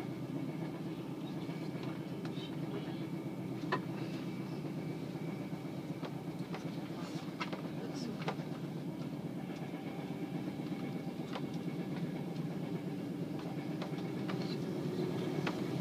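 Steady running rumble of a passenger train heard inside the carriage at speed, with a few sharp clicks scattered through it.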